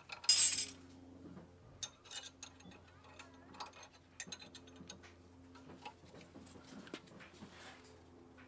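Socket wrench ratcheting in irregular runs of clicks while loosening the brake caliper bolts, after a brief loud rasping noise about half a second in.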